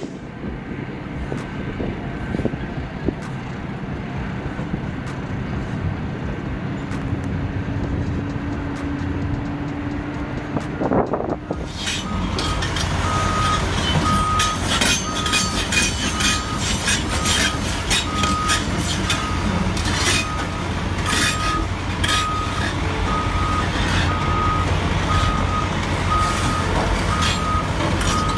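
Heavy vehicle engine running. From about twelve seconds in, a reversing alarm beeps about once a second over the engine noise.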